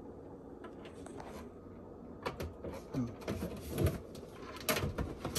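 Handling noise from a plastic reverse osmosis filter unit and its plastic tubing being shifted into place in a cabinet: irregular scrapes, rubbing and knocks that start about two seconds in, over a steady low hum.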